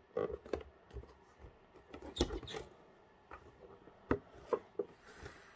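A cardboard display box with a clear plastic window being handled: scattered taps, knocks and rubbing, the loudest pair a little over two seconds in.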